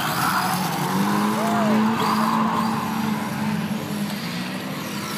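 A car engine running steadily, with people talking.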